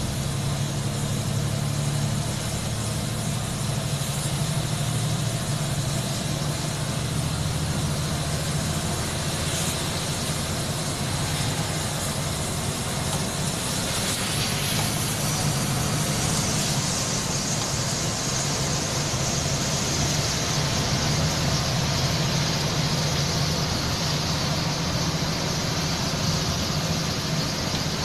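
Bus engine running steadily while driving, heard from inside the cab, with the hiss of tyres on a wet road. The hiss grows louder in the second half.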